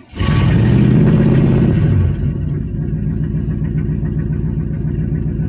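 1985 Chevy Suburban's carbureted V8 with a four-barrel Quadrajet fires up and revs high for about two seconds, then drops to a steady idle.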